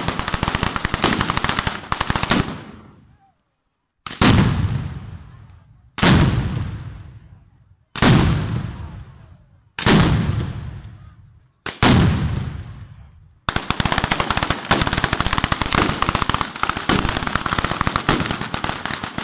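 A street 'batteria' of firecrackers going off at ground level in rapid strings of bangs. A dense rattle at the start stops after a couple of seconds, then five loud bursts come about two seconds apart, each dying away. From about two-thirds of the way through there is an unbroken rattle of bangs.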